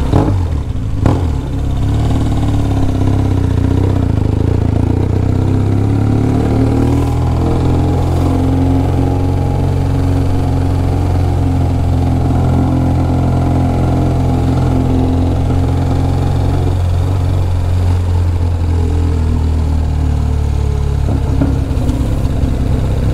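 BMW R1200GS boxer-twin engine running steadily at low revs as the motorcycle cruises. Two short knocks come in the first second or so.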